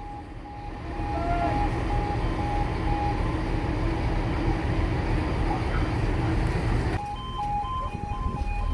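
Level crossing warning alarm sounding in repeated short tones over a steady low rumble. About seven seconds in, the sound changes abruptly to an alarm that alternates between two notes.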